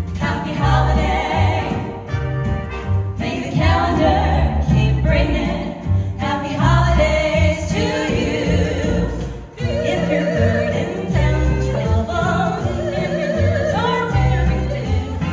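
A vocal group singing a Christmas song in harmony, with a steady rhythmic bass and jingle bells.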